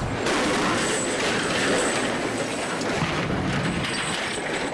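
Heavy crash of a car dropped from a crane onto a reinforced concrete slab, breaking in suddenly just after the start and carrying on as a loud, steady crunching rumble for about four seconds.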